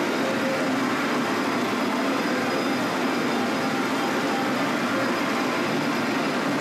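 Steady din of a pachinko parlor: many machines running at once, with their steel balls rattling through them, blending into one unbroken noise without distinct events.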